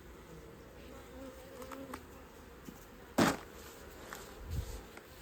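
Honey bees buzzing around an open hive, one flying close with a wavering buzz in the first couple of seconds. A brief loud handling noise about three seconds in, then a softer low thump.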